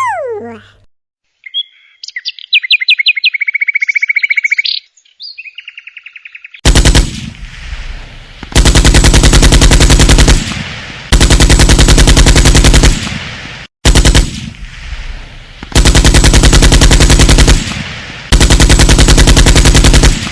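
A run of phone message ringtones: a short chirpy electronic trill, then a loud, very rapid rattling buzz that repeats in bursts of about two seconds with short gaps between them.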